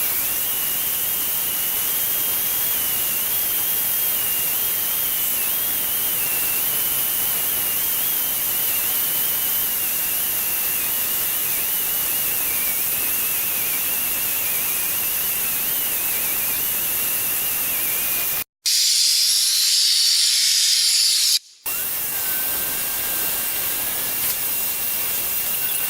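Vacuum cleaner running steadily with a high whine that wavers slightly in pitch, sucking dust and debris out of an RV rooftop air conditioner's coil fins. Between two abrupt cuts about three-quarters of the way in comes a few seconds of louder, brighter hiss; after it the vacuum runs on with a second, lower whine added.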